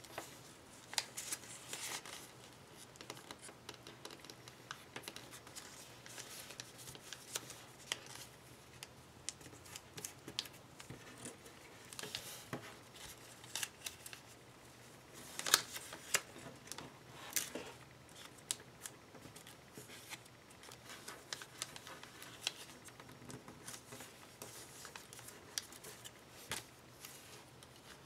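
A sheet of paper being folded and creased by hand for origami, with scattered crisp crackles and ticks as the fingers press the folds and the paper shifts on the table. Two louder snaps come a little past halfway.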